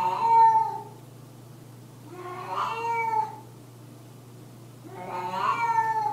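Domestic cat yowling: three long, drawn-out meows about two and a half seconds apart. This is the kind of night-time vocalizing that can be a sign of hyperthyroidism.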